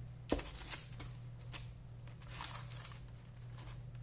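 Parchment paper crinkling and rustling as roasted eggplants are turned over by hand in an air fryer pan, with a sharp knock about a third of a second in and a smaller click just after.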